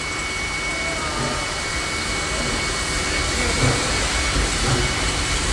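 Steady hiss with a low, uneven rumble of wind buffeting the microphone, over a steam locomotive simmering in its shed.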